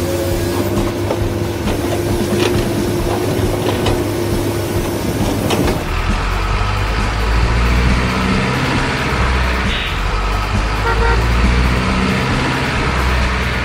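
Truck sound effects: a long, steady horn blast, cut off about six seconds in by a deep rumbling diesel-truck engine that pulses as it runs.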